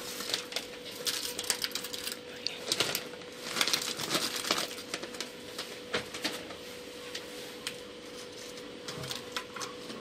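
Irregular crinkling and light clicking of crinkle-cut potato chips being handled and spread in a glass baking dish, busier in the first half, over a faint steady hum.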